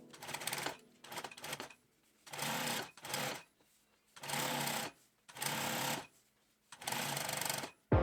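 Sewing machine stitching in six short runs of about a second each, stopping briefly between runs.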